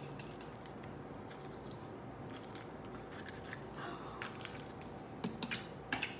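Faint scattered small clicks and handling noises over a faint steady hum, with a few sharper clicks about five and six seconds in.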